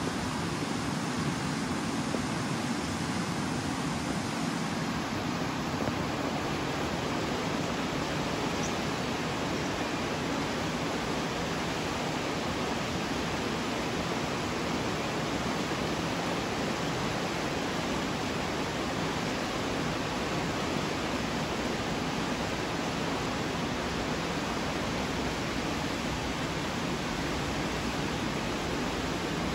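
Fast-flowing mountain river rushing over rocks and shallow rapids, a steady, even sound of water throughout.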